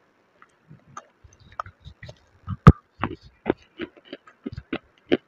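Dry white khadi clay crunching and crackling: a string of irregular crisp cracks, the sharpest and loudest about two and a half seconds in.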